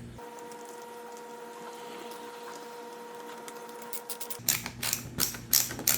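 A faint steady hum, then, about four and a half seconds in, a quick irregular run of sharp clicks and taps from small screws, a screwdriver and plastic headset parts being handled and screwed back together.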